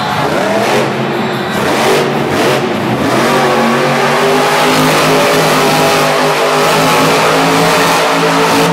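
Grave Digger monster truck's supercharged big-block V8 revving loudly under hard throttle as the truck spins on the dirt, climbing in pitch over the first few seconds and then held high.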